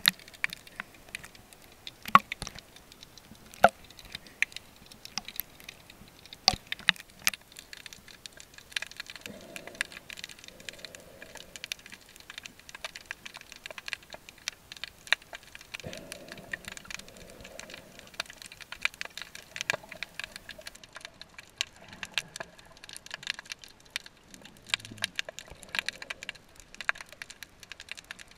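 Irregular sharp clicks and crackles, scattered unevenly with a few louder snaps among them, and some faint muffled low sounds in between.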